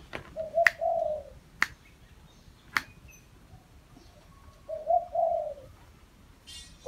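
Caged decoy dove cooing: a short coo phrase about half a second in and another near five seconds, with a few sharp clicks in between.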